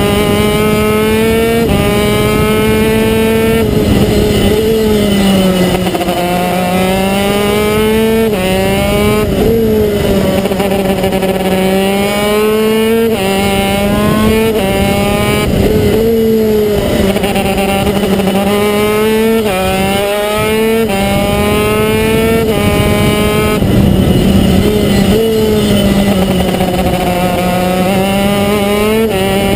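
TM KZ10 125cc two-stroke gearbox kart engine at racing speed, heard from onboard, its revs climbing and dropping sharply again and again as the driver shifts up through the gears, with slower falls into the corners.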